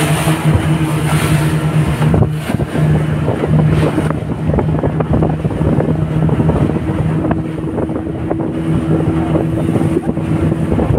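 Fishing boat's engine running steadily under way, a constant low hum, with wind buffeting the microphone and water washing past the hull.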